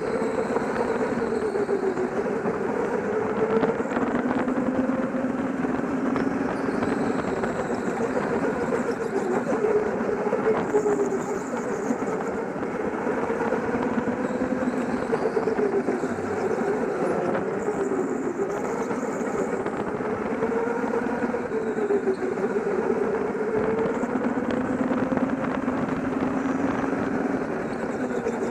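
Go-kart motor running at speed, heard from on board the kart: its drive note rises and falls in pitch as it slows and picks up through the corners.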